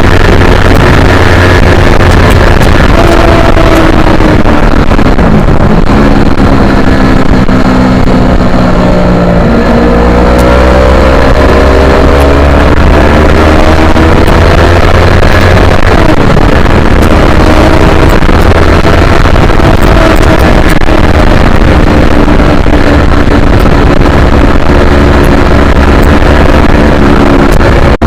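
Yamaha R3 parallel-twin engine at track speed, heard onboard, with loud wind buffeting on the microphone. The engine pitch drops several times, the deepest about five seconds in, then climbs again as the bike accelerates.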